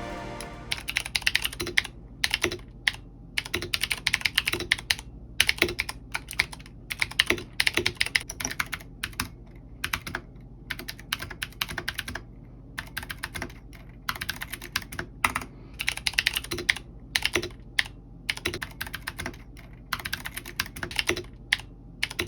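Typing on mechanical keyboards fitted with Cherry MX Blue clicky switches, the same switch heard on two different keyboards. Quick runs of sharp keystroke clicks come in bursts with short pauses between them.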